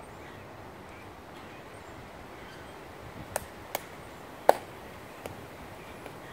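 Sharp heel clicks and steps of hard-soled dress shoes on the stone plaza as a ceremonial guard turns and steps off: four crisp clicks over about two seconds, the third the loudest.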